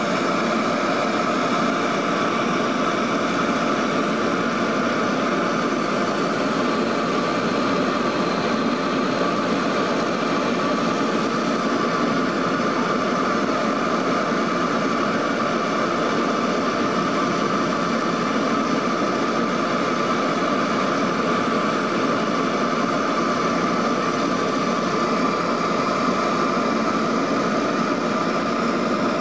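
Inside-cabin sound of a Lockheed L-188 Electra's four Allison 501 turboprop engines running steadily, with the aircraft low on approach and its flaps lowered. It is a steady drone of several held engine and propeller tones over a rush of air, with no change in pitch or loudness.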